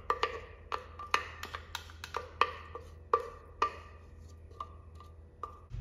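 Wooden spatula knocking and scraping inside a blender jar as thick corn batter is scraped out into a bowl: a quick, irregular run of sharp wooden knocks, each with a short ring, growing sparser and fainter near the end.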